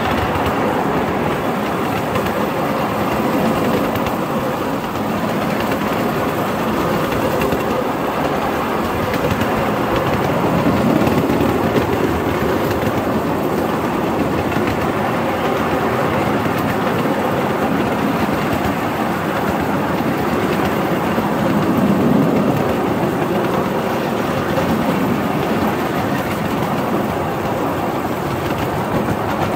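7¼-inch gauge ride-on miniature locomotive, a model of a Queensland Railways DH-class diesel, running along the track with its riding car: a steady rumble of the train and its wheels on the rails, swelling a little twice.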